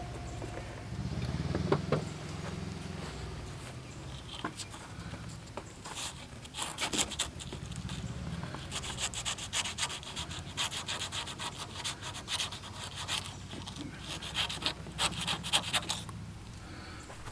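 Quick back-and-forth rubbing and scraping strokes by hand, in several bursts, over a low steady hum.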